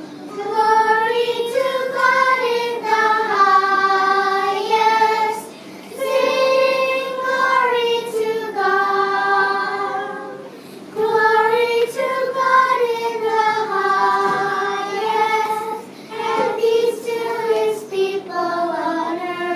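Children's choir singing a slow melody in long held notes, in four phrases of about five seconds with short pauses between them.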